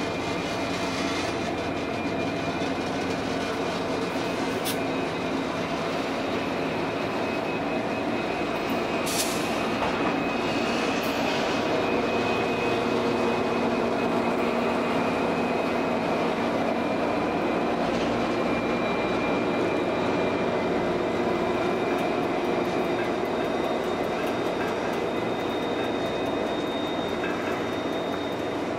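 Three Pacific National 90 class diesel-electric locomotives hauling a loaded coal train pass at about 10 km/h, their engines running with a steady drone and a thin high whine. A few sharp clicks come from the wheels on the rail.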